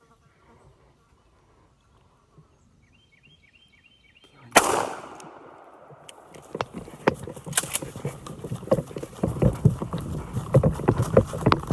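A single shotgun shot about four and a half seconds in, dying away over about a second. After it, a quick, uneven run of crunching and rustling steps through brush and dry leaves.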